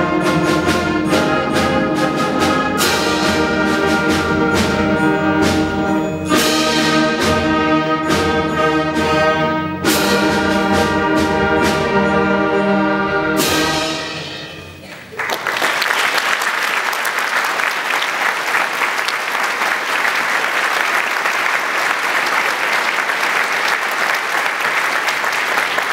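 A concert band plays the closing bars of a fanfare: massed brass chords over percussion strokes, with a final chord ringing out in the hall about fourteen seconds in. Then an audience applauds steadily until the end.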